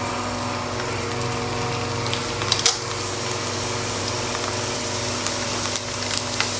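Papad (fryums) sizzling in hot oil in a steel wok over a steady hum, with a short sharp clack a little under three seconds in.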